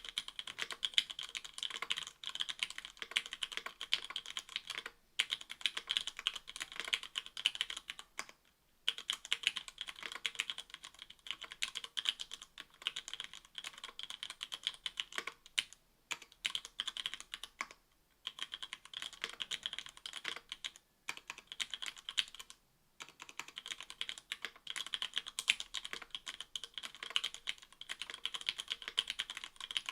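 Fast, steady typing on a mechanical keyboard with stock Cherry MX Black 60g linear switches, an aluminium plate and GMK keycaps. The clicks come densely, with brief pauses about every few seconds.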